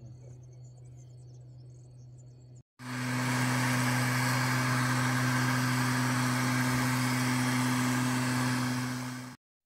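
An engine running steadily at a constant speed, a fainter hum at first and then much louder from about three seconds in, cutting off abruptly near the end.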